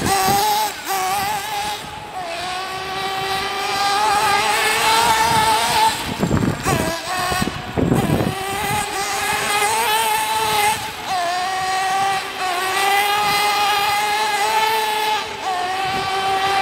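Radio-controlled buggy's motor running at high revs with a high-pitched whine that wavers up and down with the throttle as it races on dirt. Wind buffets the microphone about six to eight seconds in.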